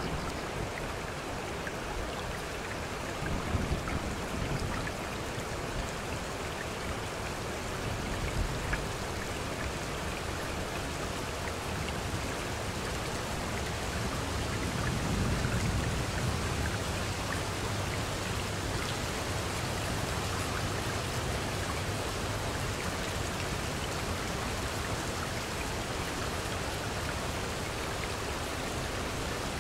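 Recorded rain falling steadily, an even hiss of drops, with a low rumble that swells briefly a few seconds in and again about halfway through.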